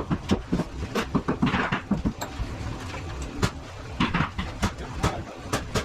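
Construction site noise: a scatter of irregular sharp knocks and clicks from a crew at work framing and shingling.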